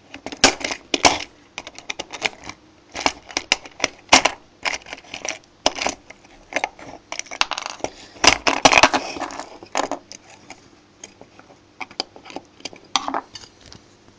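Irregular clicks, knocks and clatter of small plastic and metal parts as a residual current device is prised apart with hand tools, with a longer scraping rattle around the middle.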